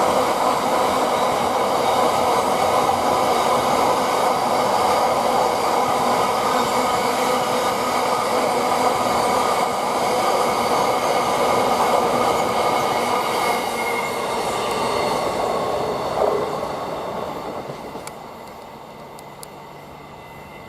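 Freight train hauled by a GBRf Class 66 diesel locomotive passing through the station: a steady rumble and rattle of the wagons' wheels on the rails, with faint ringing tones above it, dying away about seventeen seconds in.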